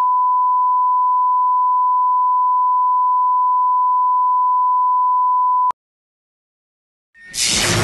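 A steady 1 kHz line-up test tone, one unwavering beep accompanying colour bars, cuts off abruptly about three-quarters of the way in. After a second and a half of dead silence, a loud noisy burst of intro sound swells in just before the end.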